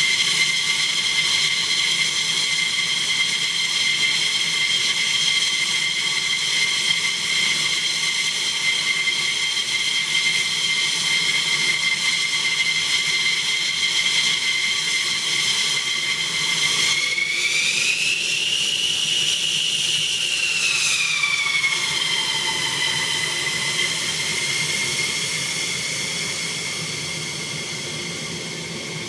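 F-15E Strike Eagle's twin jet engines running with a steady high turbine whine. A little past halfway the whine rises in pitch for about four seconds and falls back as the engines are throttled up, and the jet begins to taxi. The sound eases off slowly near the end.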